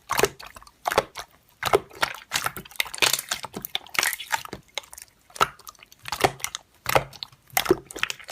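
Slime being squished and pressed by hand, making a run of sticky, wet clicks and pops at irregular intervals, about one or two a second.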